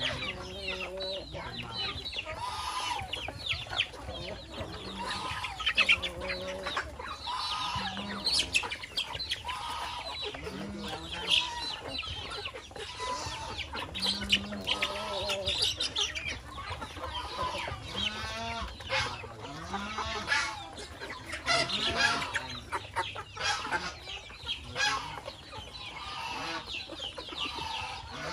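A flock of chickens clucking and calling over one another, many short calls overlapping without a break.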